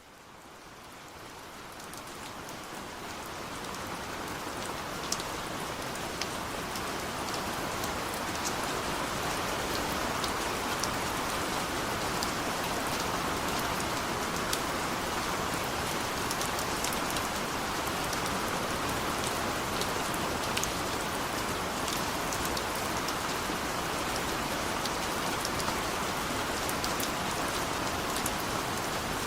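Heavy rain falling steadily, with individual drops ticking sharply on a surface. It fades in over the first few seconds and then holds at an even level.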